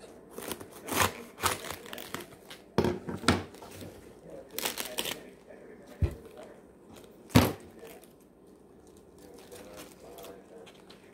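Large outer leaves being snapped and torn off a raw cabbage head: a series of crisp cracks with crinkling, leafy rustles between them. The loudest snap comes about seven seconds in, and it is quieter after that.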